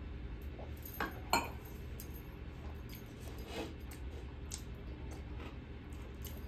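A steel tumbler is set down with two sharp clinks just after a second in, followed by a few fainter clinks of plates being handled, over a steady low hum.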